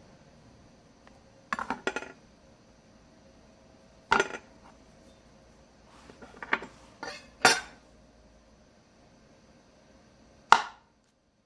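Kitchen knife and utensils knocking and clinking against a cutting board and dish as an avocado is cut, skinned and pitted: a scattering of separate sharp knocks, the loudest near the end with a short ring.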